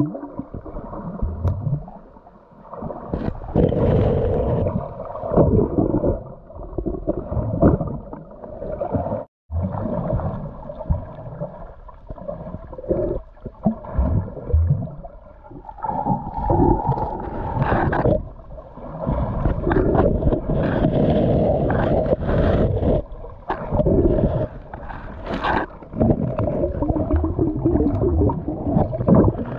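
Muffled underwater rumbling and sloshing picked up by a submerged camera as a hand moves through the water and over a seagrass bed. It surges and fades irregularly.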